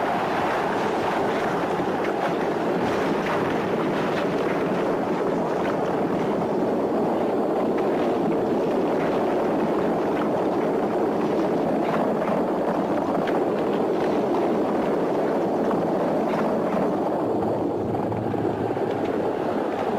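Galloping horses' hooves and chariot wheels on a sand track, making a dense, steady rumbling clatter.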